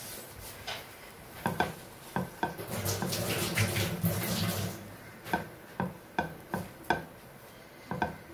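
Light knocks and clinks from a non-stick frying pan on the stovetop as a sandwich toasting in it is pressed down by hand. About two and a half seconds in there is a louder stretch of rustling noise, and a quick run of knocks follows.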